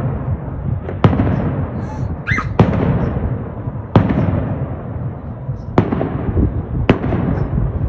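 Aerial fireworks bursting: five loud sharp bangs at uneven intervals of one to two seconds, over a continuous low rumble and crackle from other shells.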